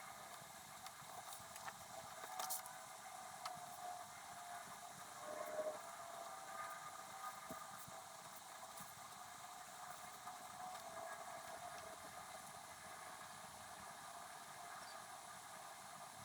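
Faint steady hiss with a few light clicks and ticks from writing a letter by hand, sped up about five times.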